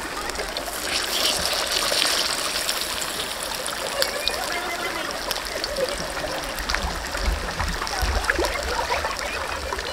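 Masala-coated fish frying in hot oil in a steel kadai: a steady sizzle full of small crackling pops, swelling about a second in and easing after a couple of seconds. Flowing river water runs underneath.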